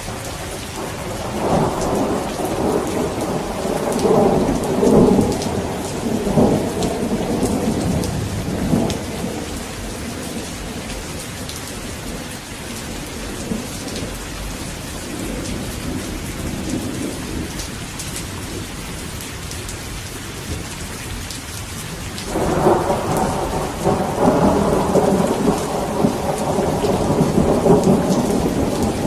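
Steady rain falling with thunder rolling: a long rumble in the first third, then a second one breaking in sharply about two-thirds of the way through and carrying on to the end.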